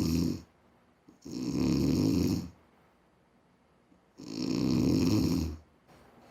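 A man's heavy snoring from a home recording of his own sleep: a snore ending about half a second in, then two more buzzing, rattling snores, each about a second and a half long, with quiet pauses between. The snoring of a man with obstructive sleep apnea.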